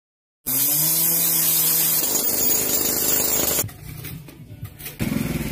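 A power tool starting suddenly about half a second in and running loudly with a steady hum; it drops away just past three and a half seconds and starts again near the end.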